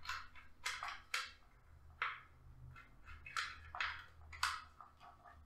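Quiet plastic handling noise: scattered short clicks and scrapes as a power cable's plug is worked into the port on the base of a TP-Link Deco M4 mesh Wi-Fi unit held in the hands.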